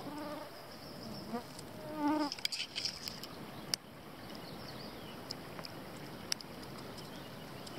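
Mosquitoes buzzing steadily around, a continuous insect hum through the whole stretch.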